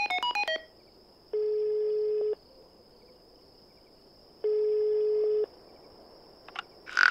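Cell phone sounds: a quick run of short electronic beeps, then two long beeps of one pitch, each about a second long and about three seconds apart, like a call tone. A faint steady high tone runs underneath, and there is a small click near the end.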